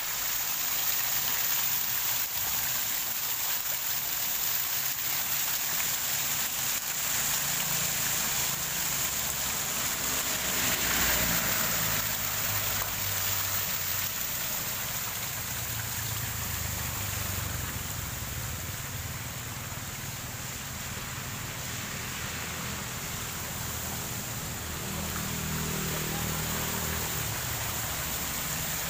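Muddy floodwater from an overflowing river rushing and spilling over a concrete edge onto a flooded road, a steady rush of water.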